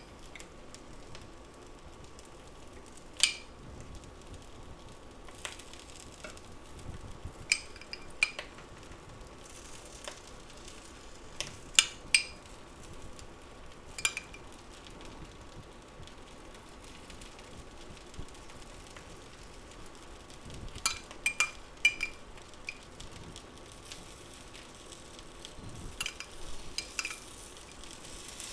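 Egg pizza frying in a non-stick skillet with a low, steady sizzle, broken about ten times by sharp clinks of a utensil, some single and some in quick clusters, as diced tomatoes are spooned on.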